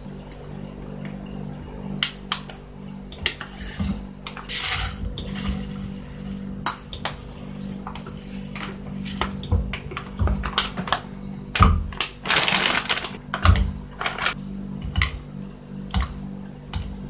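Dry spices being tipped and dropped into a plastic tub on a kitchen scale: scattered light clicks and taps, with two short rustling, pouring bursts about five and twelve seconds in. A low steady hum runs underneath.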